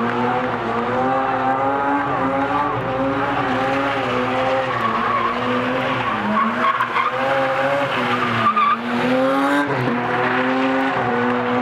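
BMW E30 being drifted, its engine held high in the revs with the pitch dipping and climbing again several times as the throttle is worked, and the tyres squealing as they spin and slide.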